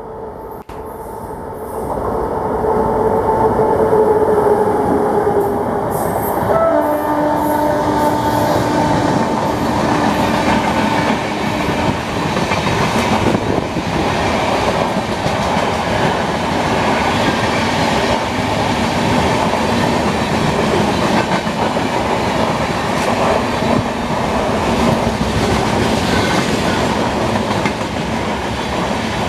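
Express trains hauled by electric locomotives passing at speed: a loud, continuous rush and rattle of wheels on the rails that swells up about two seconds in. A locomotive horn sounds in sustained notes over roughly the first twelve seconds.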